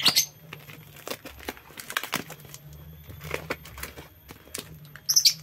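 Plastic cling wrap and a cardboard box being peeled and torn open by hand: irregular crinkling and crackling, with loud sharp rips right at the start and again near the end. A faint steady low hum runs underneath.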